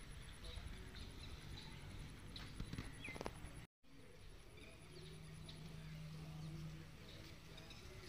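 Faint rural outdoor ambience: scattered bird chirps over a high insect trill, with a low hum for a couple of seconds in the second half. The sound cuts out for an instant just before the middle.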